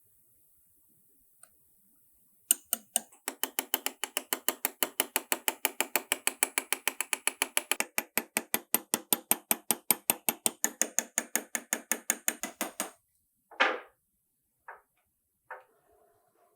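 Rapid, even mechanical clicking, about five clicks a second, like a ratchet turning, lasting about ten seconds, followed by three separate clicks.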